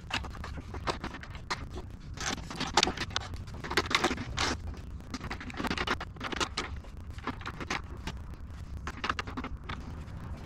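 Hands setting up a plywood taper jig on a table saw: the board and jig slid and shifted, and T-track hold-down clamps set into place, giving an irregular run of scrapes, clicks and knocks.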